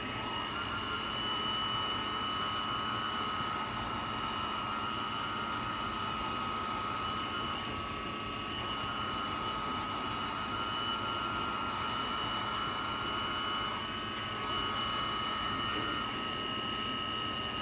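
Homemade 1/12-scale RC Komatsu PC360LC excavator model's motors running with a steady high whine, the tone shifting a little now and then as it works.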